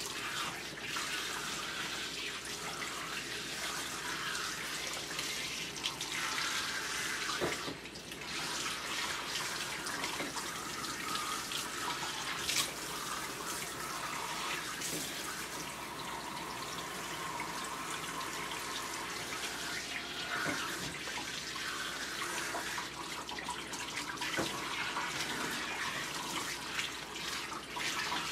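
Water spraying from a handheld bath sprayer onto a small dog's wet coat and into the tub, running steadily with a brief drop about eight seconds in.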